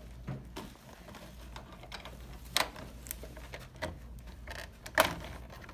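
Small, scattered clicks and knocks as the Luggie scooter's gear-and-spring assembly is forced at an angle into the handlebar joint base, with two sharper clicks about two and a half and five seconds in.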